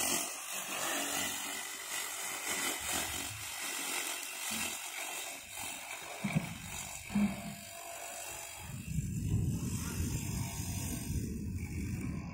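Homemade electric lawn mower, driven by a converted water-pump motor, running as it is pushed across grass with its blade cutting. A rougher low rumble comes in for the last few seconds.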